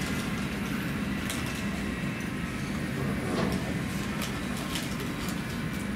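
Steady low drone of airport ramp and terminal background noise, with scattered faint clicks.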